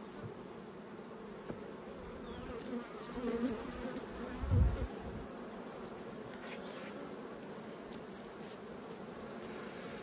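Honey bees from a populous colony buzzing over an opened Langstroth hive, a steady wavering drone of many wings. A few low bumps come between about two and five seconds in, the loudest near the middle.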